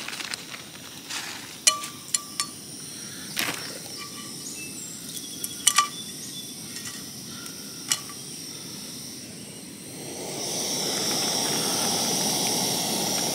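A few light clicks and clinks as dehydrated bacon strips are laid into a small camp frying pan. About ten seconds in, a steady hiss starts from the pan on the canister gas stove.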